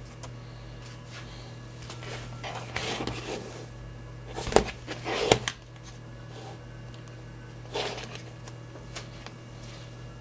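Two plastic-bodied smartphones, a Lenovo A820 and P780, being handled: rustling and rubbing as they are picked up and turned, two sharp clicks of the cases knocking together about halfway through, and a lighter knock a little later, over a steady low hum.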